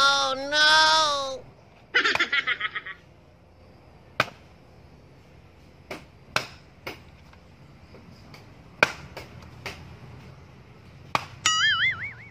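Sharp single knocks of an axe striking firewood, spaced a second or two apart. Over them are comic edited-in sound effects: a sliding tone at the start, a quick giggle-like chatter about two seconds in, and a wobbling springy boing near the end.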